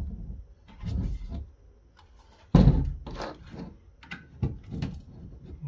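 Knocks and clunks as the case of a Cisco ASA 5505 firewall is handled, turned over and set down on a table, the loudest about two and a half seconds in, with small clicks of a screwdriver working at its screws.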